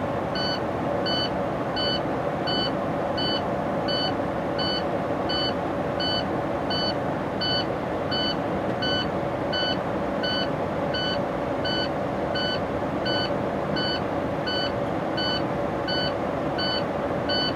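Low air pressure warning buzzer in a Class A tractor's cab beeping about twice a second, the sign that the air tanks are still below the warning pressure, over the steady running of the truck's diesel engine held at raised revs to build air.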